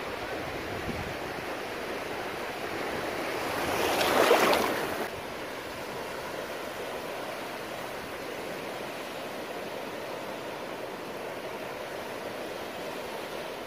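Small ocean surf washing onto a sandy beach as a steady rushing noise. About four seconds in, a louder surge of water swells up and then cuts off suddenly.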